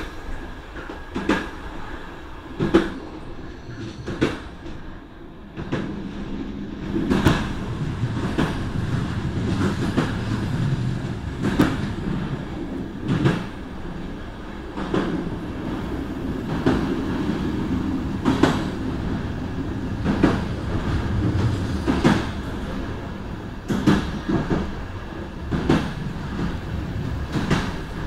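Train running along the rails, heard from its open rear door: a steady rumble of wheels on track with a sharp knock every second or two as the wheels cross rail joints. The rumble grows louder and fuller about six seconds in as the train runs into a tunnel.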